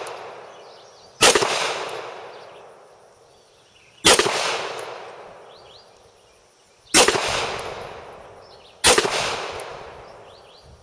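Four 9mm shots from a Beretta 92A1 pistol, fired singly about three seconds apart with the last two a little closer, each report trailing off in a long echo. The rounds are handloads: 125-grain cast lead round-nose bullets over 700X powder.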